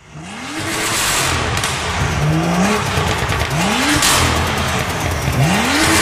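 A car engine revving up sharply about four times, each rev a quick rise in pitch, over a loud, steady rushing noise.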